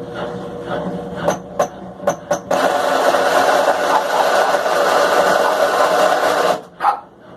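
Consul washing machine running its spin cycle with a strange noise: a few clicks, then a loud, even rushing noise that starts about two and a half seconds in and cuts off suddenly about four seconds later.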